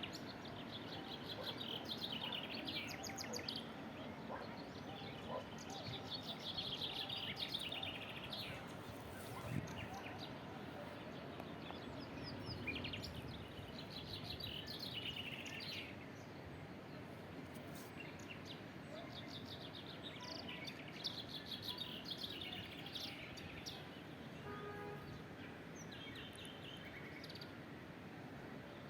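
Small birds chirping and singing in short, repeated phrases every few seconds over a steady outdoor background hiss.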